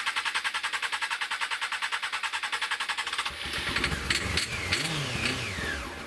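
Honda CBR600 inline-four motorcycle engine cranking on the electric starter with fast, even pulses. About three seconds in it catches and runs unevenly for a few seconds, revs rising and falling, with a few sharp cracks, then stalls. It is running on its own fuel.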